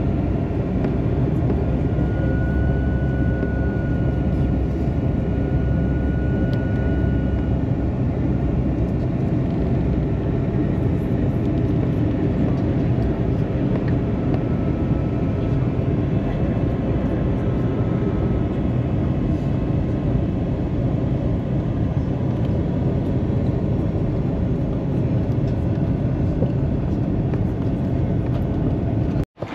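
Airliner cabin noise during descent: a steady drone of engines and rushing air, with a faint high whine in the first several seconds. It breaks off abruptly near the end.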